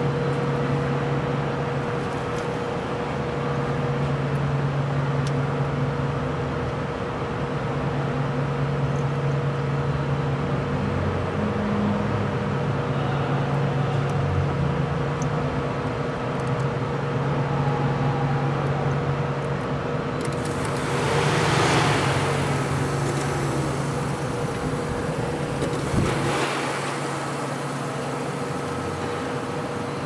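Honda engine idling steadily with a low hum. About two-thirds of the way in, the electric radiator cooling fan starts up with a rising rush of air that keeps going, and there is a sharp click a few seconds later.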